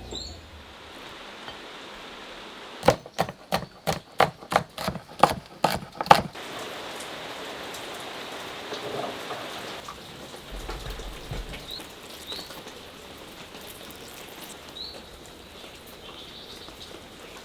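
Steady rain falling, with a quick run of about a dozen sharp knocks a few seconds in, and a few faint bird chirps later.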